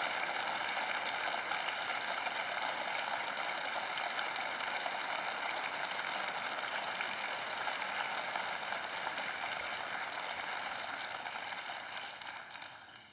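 A steady, even hiss that fades away near the end.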